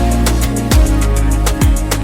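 Electronic background music with a steady beat: kick drums, fast ticking hi-hats and held bass notes.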